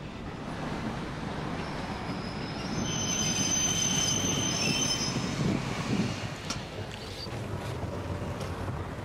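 Passenger train rumbling as it comes to a stop at a station, with a high-pitched brake and wheel squeal from about three to five seconds in, then a few metallic clicks.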